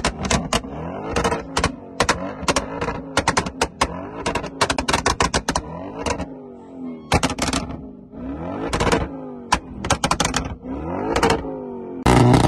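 Audi RS7 revved while stationary: the engine pitch climbs and falls again several times, and between the revs come rapid clusters of sharp exhaust pops and crackles.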